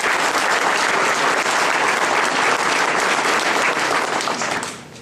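A crowd of people applauding, dense and steady, dying away about four and a half seconds in.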